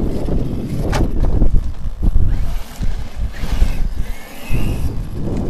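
Heavy wind buffeting on the microphone, with a brushless RC monster truck's electric motor giving a short rising whine and tyre hiss about three and a half seconds in as it drives past.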